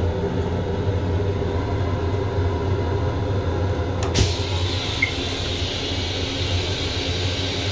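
Steady low hum of the railcar, then about four seconds in a click and a hissing rush as the LIRR M7 restroom's toilet flush starts, rinse water spraying into the stainless steel bowl.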